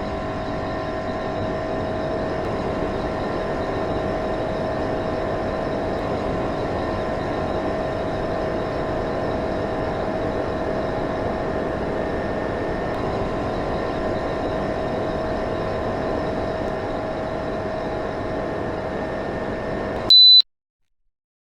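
Indoor unit of an old Beko split air conditioner running on its own, its fan blowing steadily with a constant hum. About twenty seconds in comes a single short high beep, and the sound stops abruptly.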